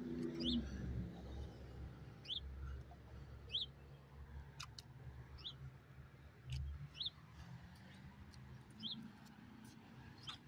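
A small bird chirping outdoors: short, high chirps about once a second, over a low rumble.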